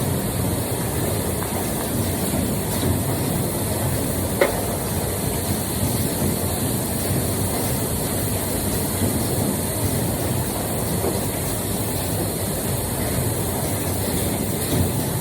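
Steady low rumbling noise with a hiss above it, and one sharp click about four seconds in.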